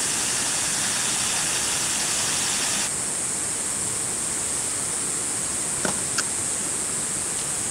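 Stir-fry of cabbage, mushrooms and meat sizzling in a frying pan over a portable cassette gas stove's hissing burner, over a steady high hiss. The sizzle drops about three seconds in, and two light clicks come about six seconds in.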